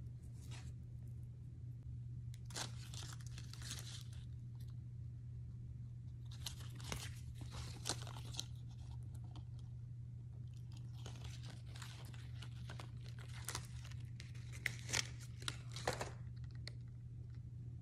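Crinkling and rustling of cardboard and paper price tags as a new pair of flip-flops is handled, in three stretches, with a few sharp clicks near the end. A steady low hum runs underneath.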